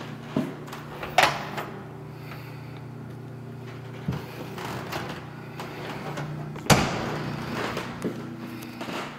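Sharp clicks and knocks of a wooden interior door and its knob being handled, the loudest about a second in and again near seven seconds, over a steady low hum.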